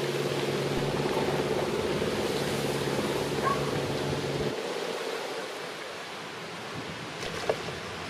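A cruiser's motor hums steadily over wind noise on the microphone, then cuts off abruptly about four and a half seconds in. There is a short sharp knock near the end.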